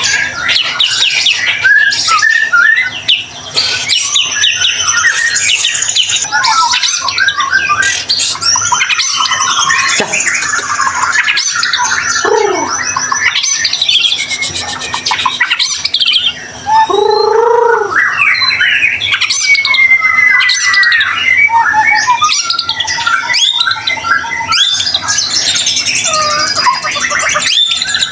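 White-rumped shama (murai batu) in full, unbroken song: rapid, varied phrases of whistles, trills and harsh chattering notes. Near the middle come a few lower notes that slide downward.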